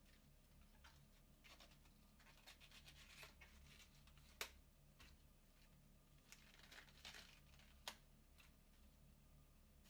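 A kitchen knife slicing through cabbage on a cutting board, faint and irregular crisp crunching of the leaves, with two sharper knife taps on the board.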